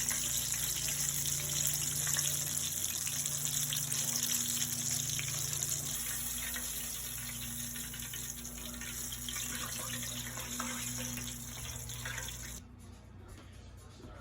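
Tilapia fish frying in hot vegetable oil: a steady sizzling hiss that cuts off abruptly near the end.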